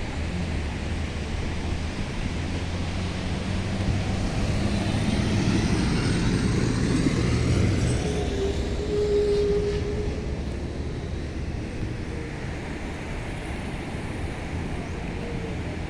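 Wind on the microphone over steady surf, with a motor vehicle passing that swells and fades over several seconds in the middle.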